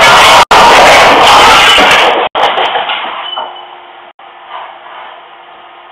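Very loud, distorted crashing and scraping as a van backs out over a smashed garage door. It cuts off after about two seconds, leaving a faint steady hum.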